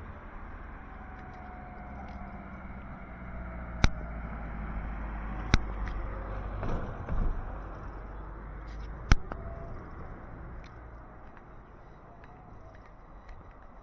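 Outdoor street ambience with a low rumble that swells towards the middle and then fades, like a vehicle passing. Three sharp clicks are heard along the way.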